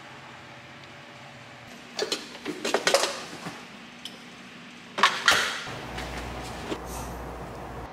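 Clattering knocks as an iced coffee cup is lifted off a capsule coffee machine's drip tray and the machine is handled: a cluster of knocks about two seconds in and another about five seconds in, then a steady low hum.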